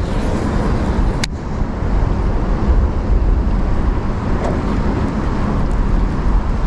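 Strong gusting wind buffeting the microphone: a loud, uneven low rumble, with a single sharp click about a second in.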